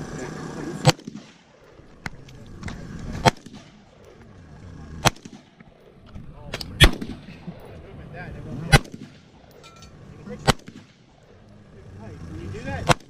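Rifle shots fired at a steady pace, about seven sharp cracks roughly every two seconds, some louder than others.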